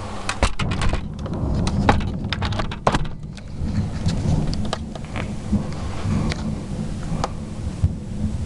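Thunder rumbling low and continuously in a thunderstorm, with a cluster of sharp crackles in the first three seconds, over the hiss of rain.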